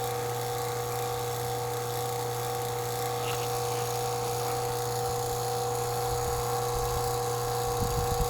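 HVAC vacuum pump running steadily with a constant motor hum and whine, pulling a deep vacuum on an air-conditioning coil that is already down to about 190 microns. A low rumble joins in near the end.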